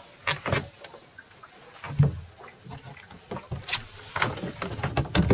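Irregular light knocks and clunks of someone moving about and handling gear in a small sailboat's cockpit.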